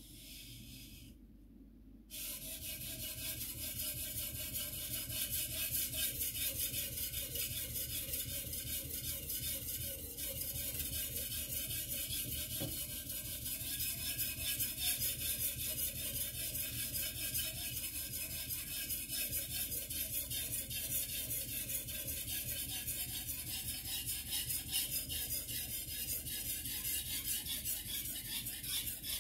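A white-steel (Shirogami #2) gyuto blade being stroked rapidly back and forth on a wet water stone: a steady gritty rasping that starts about two seconds in and keeps going.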